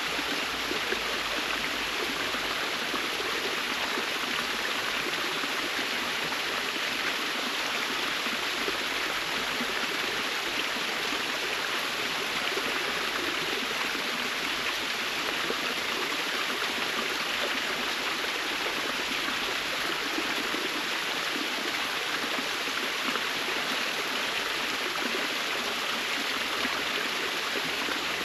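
Forest waterfall: water falling and rushing in a steady, even hiss.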